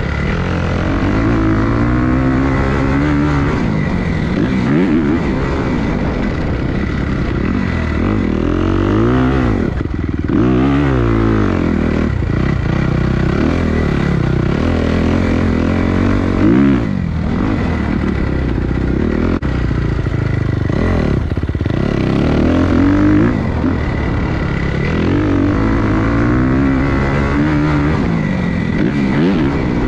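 Dirt bike engine being ridden hard, its pitch repeatedly climbing under throttle and dropping back through gear changes and off-throttle moments.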